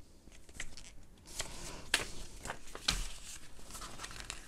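Paper rustling and crackling as a small folded instruction leaflet is handled and its pages turned, with sharp crackles about two and three seconds in.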